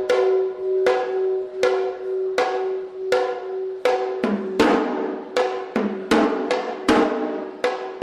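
Sri Lankan hevisi ritual drumming: hard drum strikes about every three-quarters of a second with lighter strokes between, in a steady repeating pattern. A bell's ringing tone is held underneath and stops about four seconds in.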